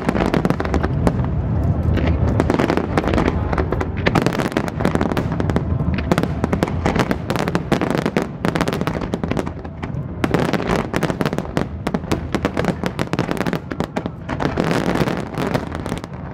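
Dense fireworks barrage: many aerial shells bursting in rapid, near-continuous succession, a steady run of sharp bangs.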